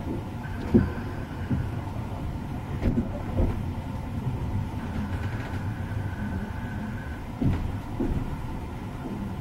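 Passenger train running along the track, heard from inside the carriage: a steady low rumble of wheels on rails with a few louder knocks from the wheels, and a faint high whine that comes and goes.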